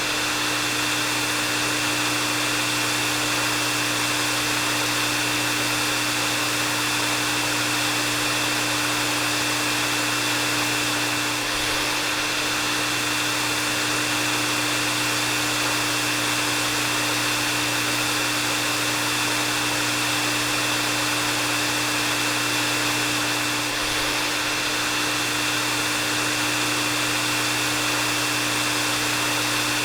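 Electric hair dryer running continuously: a steady rush of blown air with a low hum and a thin high whine held at one pitch.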